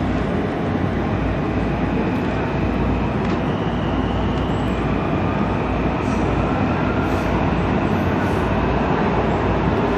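WMATA Metro Breda rehab railcar running through a subway tunnel, heard from inside the passenger cabin: steady wheel-on-rail noise with heavy low-end running noise.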